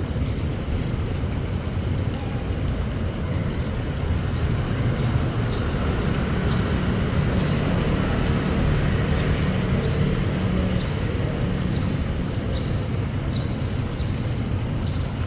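Strong wind in heavy rain buffeting the microphone, a steady low rumble. From about a third of the way in, short high chirps repeat about once or twice a second.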